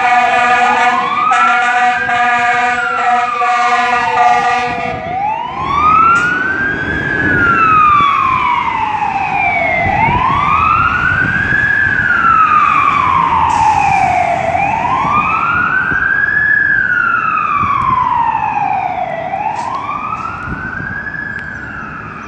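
Fire truck siren wailing, its pitch rising and falling in slow cycles of about four to five seconds, with a steady blast from the truck's air horn over it until about five seconds in. The siren grows a little fainter near the end as the truck moves off.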